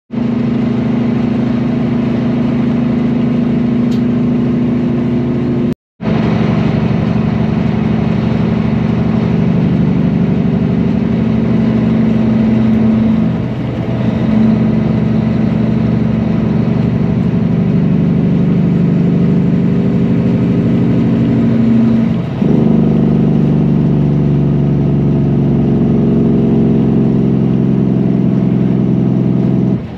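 Semi truck's diesel engine running steadily at road speed, heard from the cab, dipping briefly twice in level and pitch. The sound cuts out for a moment about six seconds in.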